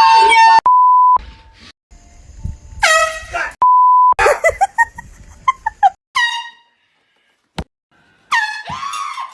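Handheld air horn blasting in several short, very loud blasts. Twice a short, steady pure beep of a censor bleep cuts in between them.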